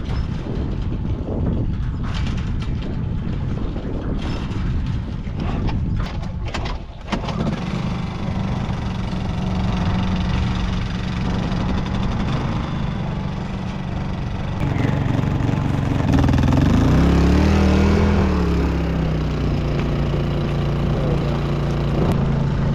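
Small gas-powered generator started to run the stock-water well: a few sharp clicks and wind noise, then the engine catches about seven seconds in and runs steadily. About fifteen seconds in a louder engine sound joins, rising and then falling in pitch once.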